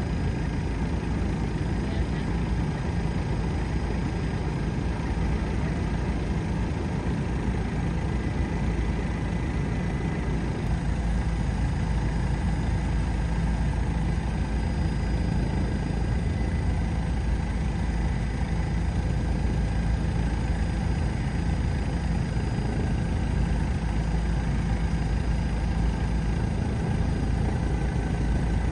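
Steady, unchanging drone of an aircraft's engine and rushing air, with a few faint steady whining tones above it.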